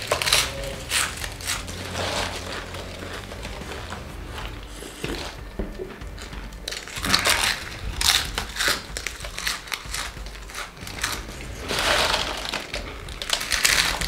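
Doritos tortilla chips being crunched and chewed fast, mouthful after mouthful: dense, irregular crunching.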